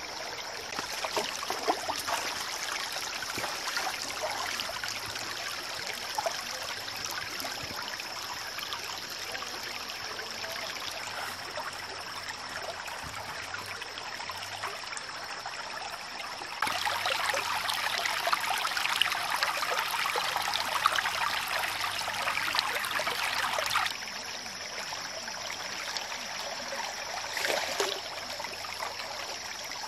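Shallow stream water trickling and running steadily, louder for about seven seconds in the middle. A thin, steady high tone sits beneath it outside that louder stretch.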